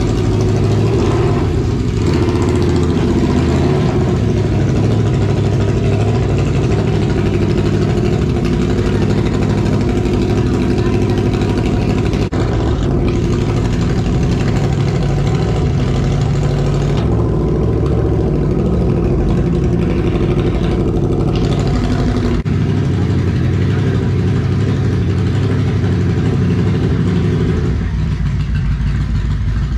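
2002 Yamaha Midnight Venture's V4 engine running at a steady idle, cold, with the choke out.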